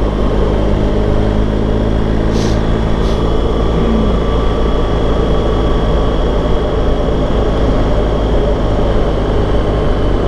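BMW GS adventure motorcycle cruising at a steady speed on tarmac: an even engine drone mixed with wind and road noise.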